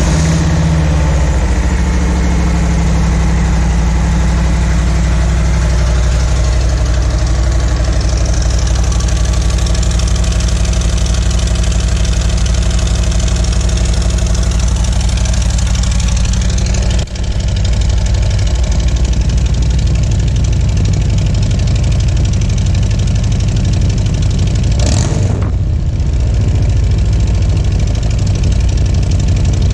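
Harley-Davidson Road King's V-twin idling steadily through an aftermarket exhaust just after starting, with a brief drop in sound about seventeen seconds in.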